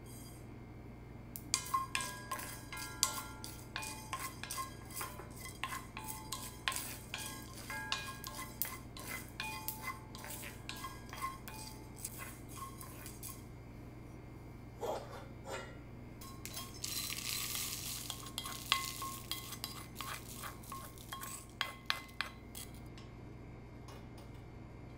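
Wooden spoon stirring whole cumin, coriander seeds and peppercorns as they dry-roast in a small cast iron skillet: a long run of quick clicks and scrapes against the pan, with a light ring. A few seconds of hissing rustle comes about two-thirds of the way through, then more stirring clicks.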